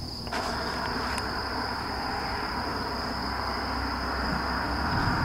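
Night insects trilling steadily at a high pitch, over a rushing, rumbling noise that sets in shortly after the start and grows louder toward the end.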